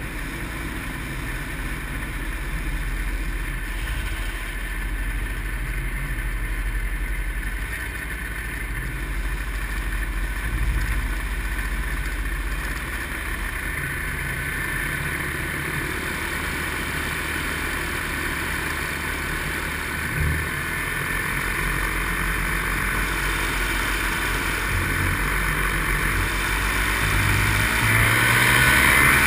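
Paramotor engine running steadily in flight, growing louder over the last couple of seconds.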